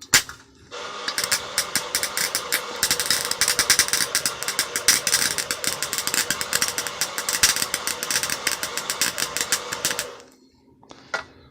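Chicago Electric wire welder's arc, welding at max heat: a dense, crackling sizzle that starts about a second in after a brief strike and stops about ten seconds in.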